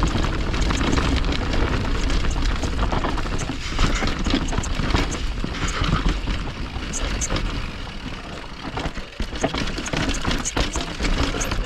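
Wind buffeting the microphone, with a low rumble, and a mountain bike rattling and knocking over rough trail while riding downhill at speed.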